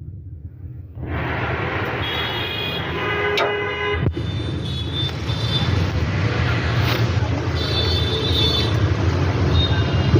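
Bajaj Maxima auto rickshaw's single-cylinder engine running steadily from about a second in, with a horn sounding briefly and a sharp click near the middle. The mechanic blames the engine's 'kach kach' noise on a worn or slack timing chain.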